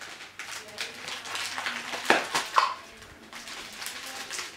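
Clear plastic wrapping crinkling and crackling as a small wrapped doll part is handled and picked open, with two louder crackles about two seconds in.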